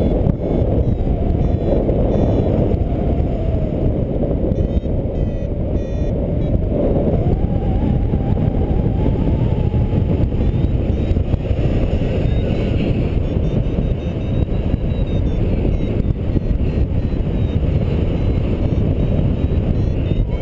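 Airflow buffeting the camera microphone of a paraglider in flight: a loud, steady, low rumble of wind noise.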